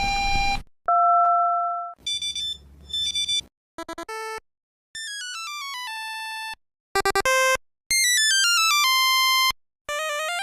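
A run of short electronic startup and shutdown tones from Mandarin mobile phones, played one after another with short gaps. There are buzzy beeps, a steady two-tone chime, and simple stepped melodies that fall in pitch and end on a held note, with a rising melody starting near the end.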